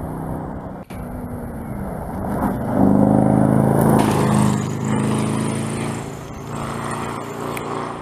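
Rally-raid SUV engine running hard as the car comes up the snowy road and passes close by. It is loudest about three to four seconds in, then drops slightly in pitch with a hiss as it goes past and pulls away.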